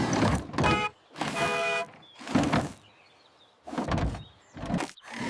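Cartoon toy-vehicle sound effects: a short honk, then a longer held honk about a second in, followed by a thump and several brief mechanical whirs.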